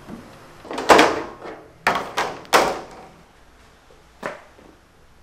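A few dull thumps and knocks from a metal baking tray as hands lay and press flattened ox-tongue biscuit dough onto it: four in quick succession from about one to two and a half seconds in, then a fainter one near four seconds.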